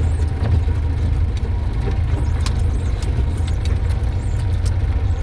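Road roller's diesel engine running with a steady low rumble, with scattered sharp clicks and rattles over it.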